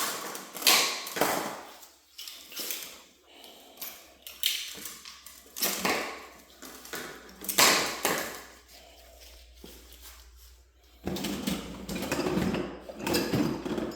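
Irregular knocks, clicks and scrapes of PVC pipe and tools being handled on a work surface, with a busier stretch of handling noise near the end.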